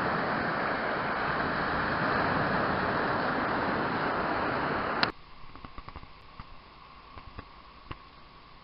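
Lake Superior waves breaking and washing over a rocky shore, a steady rush of noise. It cuts off abruptly about five seconds in, leaving a much quieter background with faint scattered clicks.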